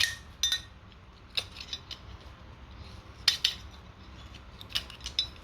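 A tool working at an old brass water meter to get its stuck internals out: a series of sharp metal clinks and knocks, about seven, the loudest a little past three seconds in.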